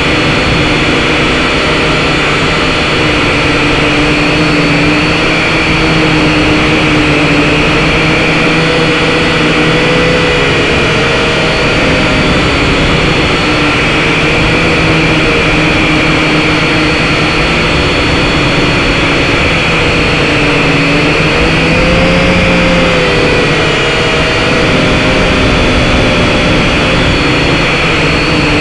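SYMA X5HC-1 quadcopter's small motors and propellers whining right at the onboard camera's microphone. Their pitch wavers up and down as the drone works to hold its position and drift in the wind.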